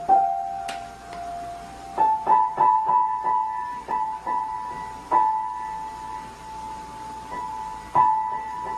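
Piano or electric keyboard: single high notes struck one at a time at uneven intervals, mostly the same one or two notes repeated, each left to ring on. A quick cluster of strikes comes about two seconds in, then they thin out, with one more strike near the end.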